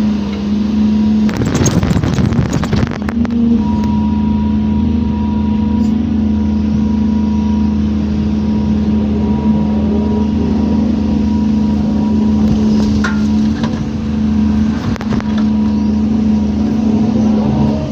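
Hydraulic excavator's diesel engine running steadily under load while it digs, with a short burst of rough, scraping noise about a second and a half in and a few brief knocks later on.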